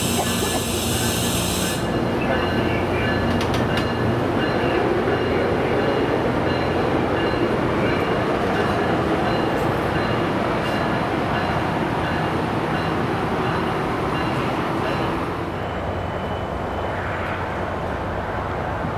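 A train rolling past on the tracks: a steady rumble of wheels with a faint, high-pitched squeal, easing slightly about fifteen seconds in. A bright hiss stops abruptly about two seconds in.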